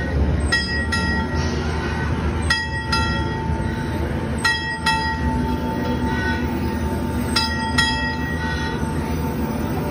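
Locomotive bell on a red steam-style park train clanging in pairs of strokes about every two seconds as the train rolls slowly into the station, over a low steady rumble from the train.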